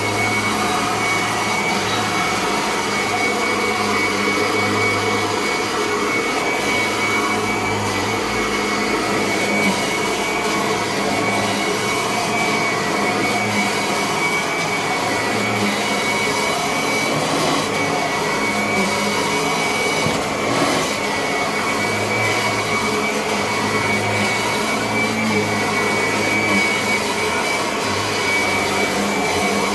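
Kirby upright vacuum cleaner running steadily, its motor and fan giving a constant high whine over a low hum.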